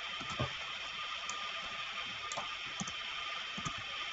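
Computer keyboard keys clicking a few times at irregular intervals over a steady background hiss.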